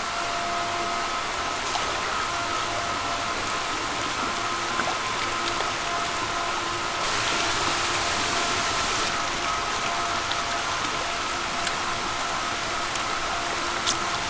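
Steady rush of water and pump machinery in an eel-farm tank, with a constant whine over it. The rush grows louder for about two seconds midway.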